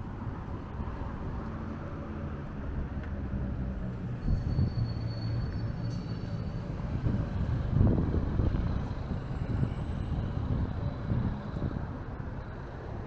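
Street traffic: vehicles passing on the road, a steady low engine and tyre rumble that swells louder about four and a half and eight seconds in.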